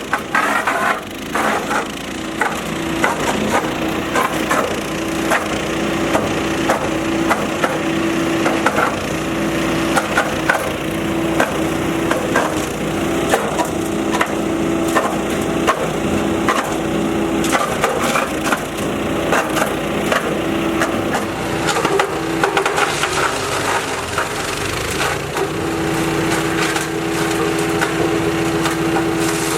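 Rock Machinery RX-13 wood chipper, driven by its 420cc Briggs & Stratton petrol engine, chipping branches and logs: a steady engine note under rapid cracking and splintering of wood. About three-quarters of the way through, the engine note drops away for a few seconds, then comes back.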